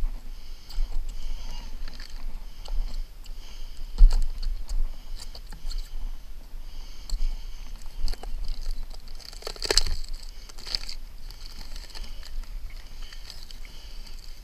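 Release paper on a Grace Ice & Water Shield membrane crinkling and rustling as it is peeled back and rolled up by hand, with scattered light taps. There is a louder rustle just under ten seconds in, over a steady low rumble.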